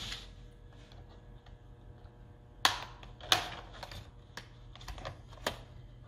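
Sharp plastic clicks and knocks from the bottom memory access cover of an HP 15 laptop as it is pried at, its tight snap-in latches resisting. Two loud clicks come a little under three seconds in, about half a second apart, and another near the end, with fainter ticks between.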